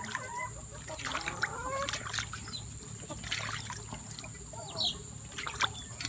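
Muscovy duck dabbling its bill in a steel bowl of water, with scattered small splashes and dribbles.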